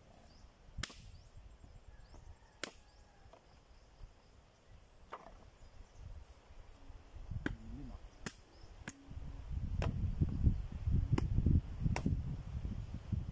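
Machete chopping rotten, rain-soaked branches: about nine sharp blade strikes at uneven gaps of one to two seconds, with a low rumble under the last few seconds.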